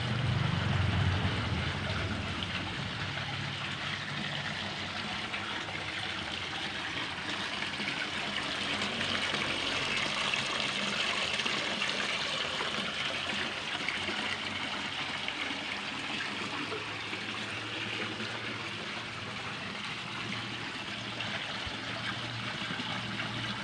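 Water falling steadily from an artificial rock-relief waterfall into a garden pond, a continuous splashing trickle.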